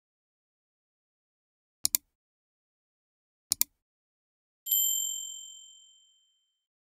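Two quick double clicks, then a single bright bell ding that rings and fades out over about a second and a half, like the click-and-bell sound effects of a video's subscribe outro, set against dead silence.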